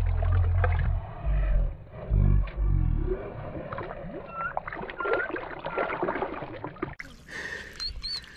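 Water sloshing and gurgling around a Murray cod held by the jaw in the shallows, with heavy low rumbling knocks on the microphone in the first few seconds. Faint chirps sound through it, and near the end the sound changes abruptly and a high chirp repeats quickly.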